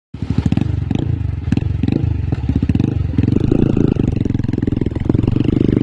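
Yamaha R15 V4's 155 cc single-cylinder engine running through an aftermarket R9 exhaust, a loud, steady, deep pulsing note, with sharp cracks now and then during the first few seconds.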